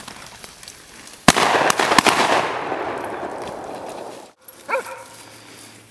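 Two shotgun shots less than a second apart, about a second and a half in, their report dying away over a couple of seconds. A dog whines near the end.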